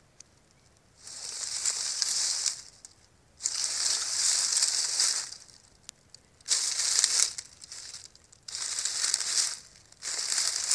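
Nine-banded armadillo rooting through dry leaf litter, with loud crunching rustles of leaves that come in bursts of a second or two, about five times, separated by brief pauses.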